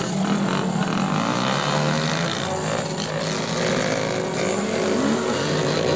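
Several dirt-bike engines running and revving as the bikes pull away, the engine pitch rising and falling.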